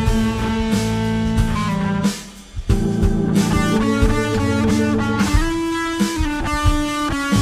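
Instrumental music led by guitar, with bass and drum kit. About two seconds in, the band drops out for about half a second before coming back in.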